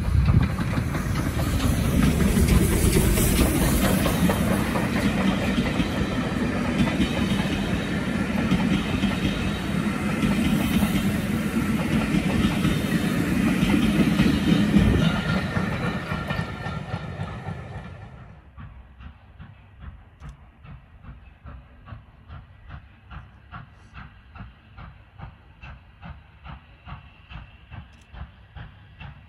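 Steam train passing close by: Southern Railway S15 4-6-0 No. 847 running tender-first, then its coaches, a loud rumble with wheels clicking over the rail joints that fades away. At about 18 s it gives way to a distant steam locomotive chuffing in a steady beat, about two exhaust beats a second.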